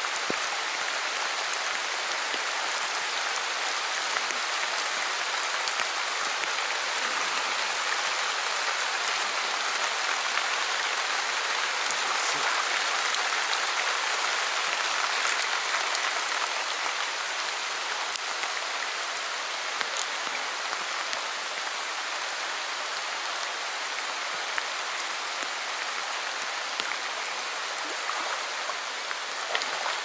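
Heavy rain falling on a stream's surface: a steady, dense hiss with the odd sharper drop ticking through.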